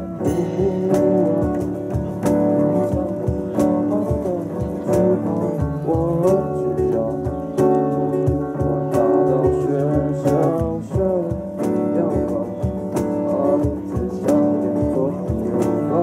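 Live acoustic band playing: strummed acoustic guitars and electric bass over a steady beat struck on a cajón, with a man singing the melody.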